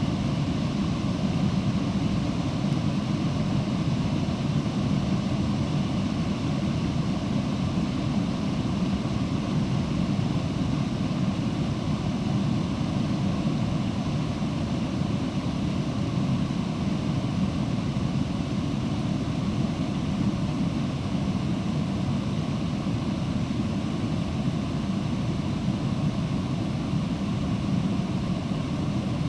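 Creek water rushing steadily, an even low rumbling noise that does not change.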